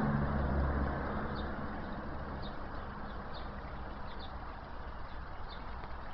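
Distant traffic rumble and hiss, strongest in the first second and then easing, with a small bird chirping about once a second.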